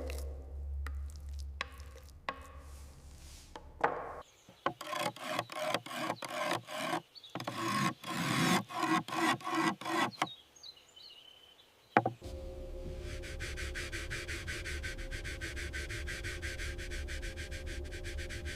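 A hand tool working wood, either sanding or rasping, in regular back-and-forth strokes about two or three a second. After a short pause and a sharp click, a steady whirring noise with a low hum takes over.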